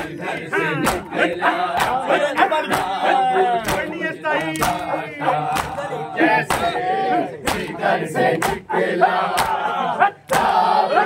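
Crowd of mourners chanting and shouting together, many voices at once, with sharp slaps of matam (hands beaten on chests) about once a second.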